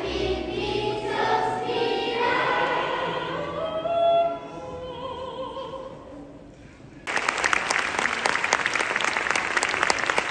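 A chorus of voices singing together on stage, holding notes that fade away. Then loud audience applause cuts in suddenly about seven seconds in.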